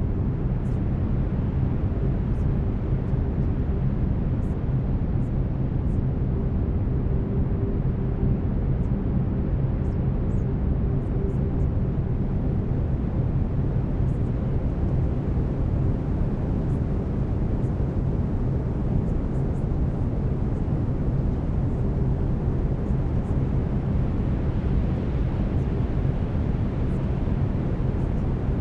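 Brown noise: a steady, deep rushing hiss, heavier in the bass. Faint steady low tones from delta-wave binaural beats run underneath.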